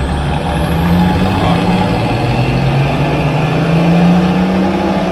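Nissan 2.8 turbodiesel engine pulling under full load on a chassis dynamometer during a power run, its pitch climbing steadily as the revs rise, heard from inside the cab.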